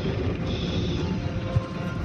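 Automatic car wash heard from inside the car: a steady wash of water and machinery noise over the windshield, with music playing, and a small knock about one and a half seconds in.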